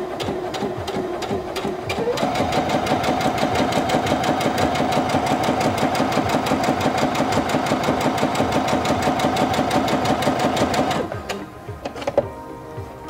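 Singer Featherweight C240 sewing machine stitching with its integrated even-feed foot engaged. The motor whine rises over the first couple of seconds, then holds a steady, rapid stitching rhythm before stopping about eleven seconds in. A single click follows about a second later.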